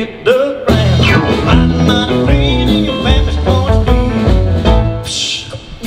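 Live country band playing an up-tempo number, with electric bass, guitar and drums under a lead vocal from the bass player. A short cymbal-like hiss comes about five seconds in.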